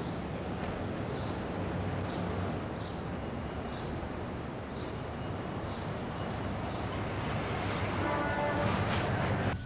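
Street traffic noise: a vehicle running with a steady rumble as it approaches and passes close by, with a short pitched tone near the end.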